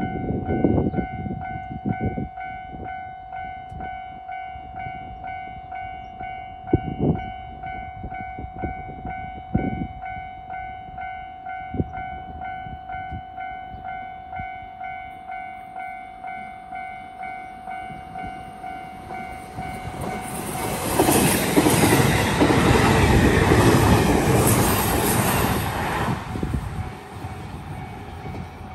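Japanese level-crossing alarm ringing in an even, repeating ding, with a few knocks in the first dozen seconds. About 20 seconds in, an E531 series electric train passes over the crossing; its passing noise is loud for about six seconds and then fades, while the alarm keeps ringing.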